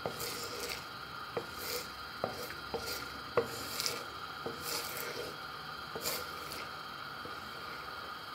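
Wooden spatula stirring and scraping thick, sticky sugar syrup around a stone-coated nonstick pan, with scattered scrapes and light taps that thin out after about six seconds.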